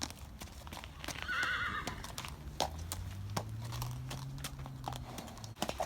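A horse whinnies once, a short high quavering call about a second in, among scattered knocks of hooves. A low steady hum runs for a few seconds after the whinny.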